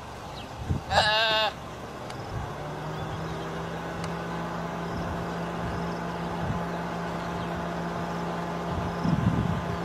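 A young impala gives one short, wavering distress bleat about a second in. From about two and a half seconds a vehicle engine idles steadily.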